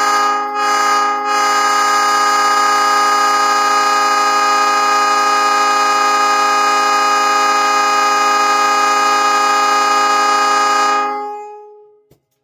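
Nathan AirChime P3 three-chime train horn sounding a loud chord: two short blasts, then one long steady blast of about ten seconds that fades away near the end.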